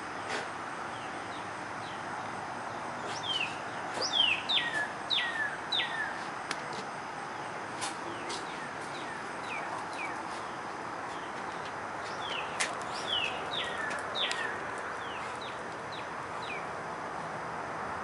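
Northern cardinal singing: a run of repeated down-slurred whistles, each sliding from high to low, a few seconds in and again about twelve seconds in, over a steady background hiss.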